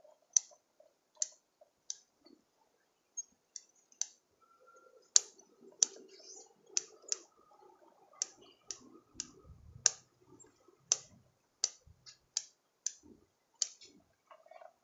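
Pruning shears snipping twigs of an anting putri bonsai: a run of sharp, irregular snips, often one every half second to a second, with faint rustling of branches and leaves between the cuts.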